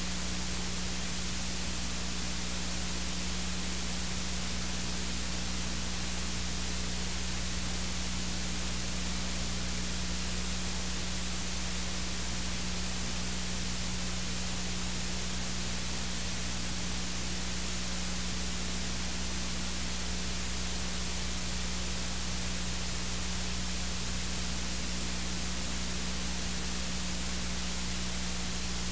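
Steady hiss with a low electrical hum and nothing else: the noise of a blank audio track, since the original recording has no sound.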